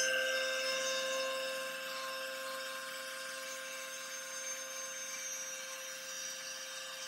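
CNC router spindle running with a steady whine as its bit cuts a sliding dovetail slot along a walnut board.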